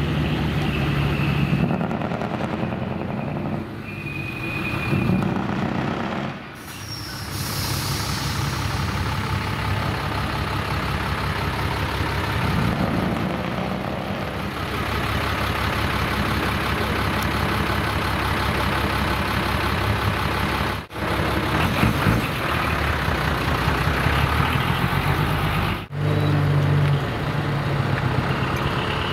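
Heavy trucks' diesel engines running and pulling away, with a hiss of air brakes about seven seconds in.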